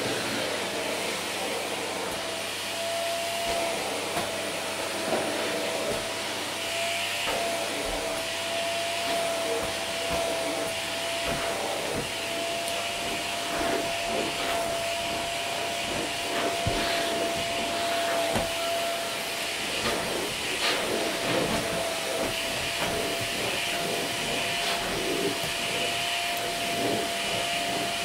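Vacuum cleaner running over carpet: a steady suction rush with a constant motor whine, and scattered small clicks as the nozzle works the carpet.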